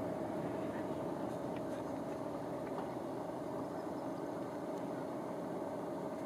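Steady outdoor background noise, even and unbroken, with no distinct events.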